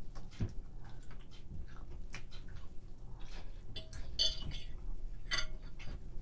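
A metal fork clicking and scraping against a dinner plate, with a few ringing clinks about four seconds in and another clink near the end.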